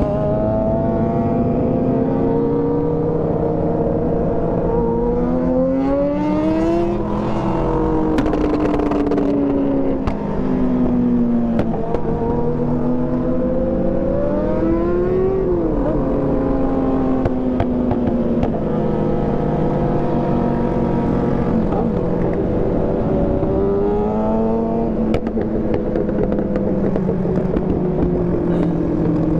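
Kawasaki sport motorcycle engine under hard riding, loud throughout. Its pitch climbs and falls again and again as the bike accelerates, shifts and slows, with several sharp rises and drops between about five and twenty-five seconds in.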